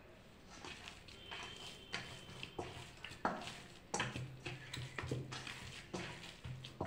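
Hand pressing and kneading soft, oiled dough in a stainless-steel bowl: faint, irregular soft slaps, about one or two a second.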